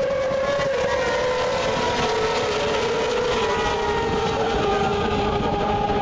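A pack of racing motorcycles running at high revs on the track, several engine notes sounding together and falling slightly in pitch as the bikes go by.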